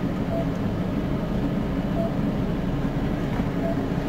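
Cardiac monitor sounding a short beep with each heartbeat, three beeps about 1.7 s apart, a slow rate of roughly 35 a minute, the slow heart rhythm that transcutaneous pacing is being set up for. A steady low rumble runs underneath.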